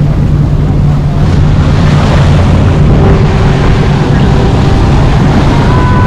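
A boat's engine running steadily under way, a low, even hum, with wind rushing over the microphone.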